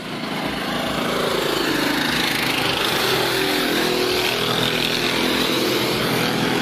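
Sport motorcycles riding past at speed. Their engine note gets louder about a second in, then drops in pitch as they go by.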